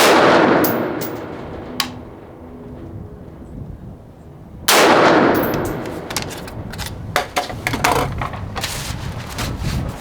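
Two single rifle shots from an H&R M16A1 retro AR-15, about four and a half seconds apart, each followed by a long echo that dies away over about two seconds. A run of sharp metallic clicks and clanks follows the second shot.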